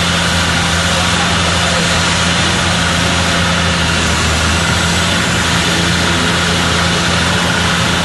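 Heavy truck engine idling steadily, a low, even hum under a constant rushing noise.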